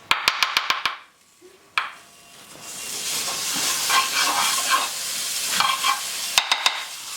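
Butter sizzling in a hot frying pan, the sizzle building up from about two seconds in. It opens with a quick run of sharp clicks, and three more clicks come near the end.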